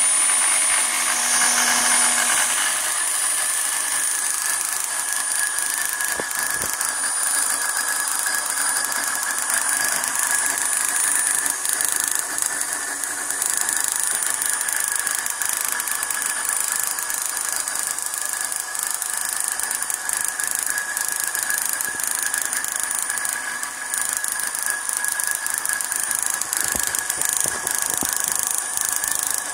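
High-voltage sparks from a Ford EDIS-4 ignition coil pack snapping rapidly across an open test gap from a spark plug to a pointed electrode, making a continuous hissing crackle. Over it runs a steady high whine from the electric drill that spins the disc.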